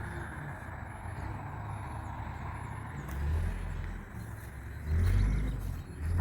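Motor vehicle running with steady road noise and a low rumble that swells louder about three seconds in and again about five seconds in.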